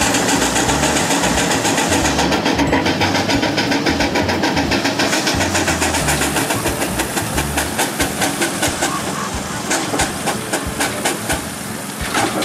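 Steam traction engine running, its exhaust chuffing in regular beats that stand out clearly, about four a second, in the later part, over a steady rushing noise.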